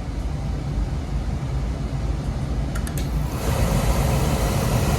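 Oil-fired boiler burner running while air is bled from its fuel pump: a steady low hum. About three seconds in come a few clicks, and then the sound rises into a louder hissing rush.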